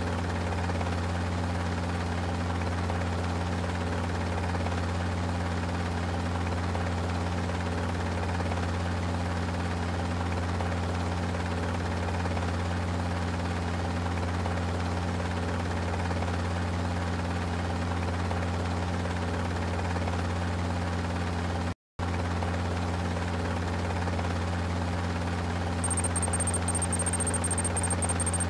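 Helicopter rotor and engine running at a steady, even drone, dropping out for a moment about three quarters of the way through. Rapid high-pitched ticking joins it over the last couple of seconds.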